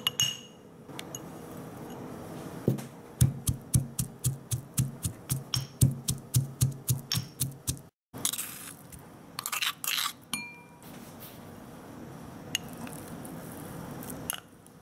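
A pestle pounding minced garlic to a paste in a mortar, a steady run of knocks about three a second. After a break, a few scrapes and clinks against a bowl follow.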